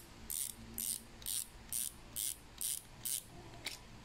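Drag knob on a Daiwa Gekkabijin LT2000S spinning reel, clicking as it is unscrewed to free the spool. The clicks come in short ratchety bursts, about two a second, eight in all, and stop shortly before the end.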